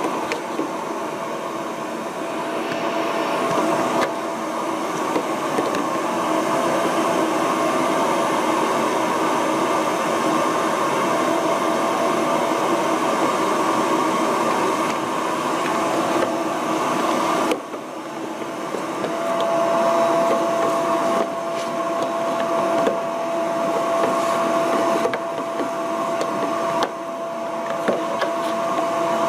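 Vacuum cleaner running steadily, sucking dust from under a refrigerator, with a few light knocks. Its sound dips suddenly a little over halfway through, then comes back with a stronger steady whine.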